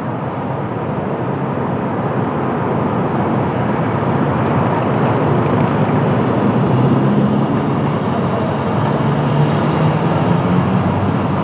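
Jet airliner on approach, its engines a steady rush of noise that slowly grows louder, with a low hum coming through in the second half.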